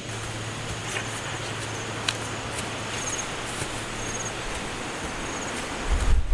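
Outdoor rural ambience: a steady hiss over a low hum, with faint short high chirps repeating through it and scattered light snaps and rustles from the vegetation. A low thump comes near the end.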